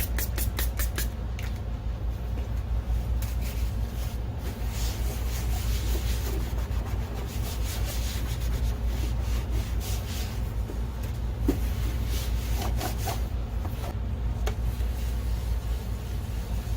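A projector's plastic case being wiped clean by hand. There are quick back-and-forth rubbing strokes at first, then slower, irregular rubs, all over a steady low hum.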